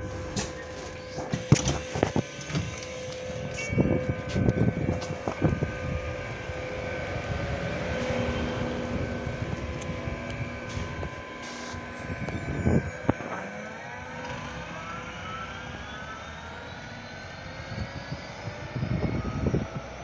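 Double-decker bus with a steady whirr of several fixed tones, with a few sharp knocks in the first seconds. About two-thirds through, a whine rises steadily in pitch as the bus pulls away and accelerates.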